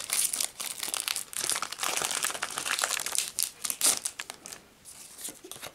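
Foil wrapper of a Pokémon TCG booster pack crinkling as it is pulled open by hand, dying down to faint rustles after about four seconds.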